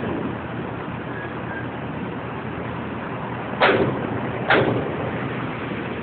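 Steady rushing noise of wind and shallow rippling water. About three and a half and four and a half seconds in, two short sharp swishes drop in pitch.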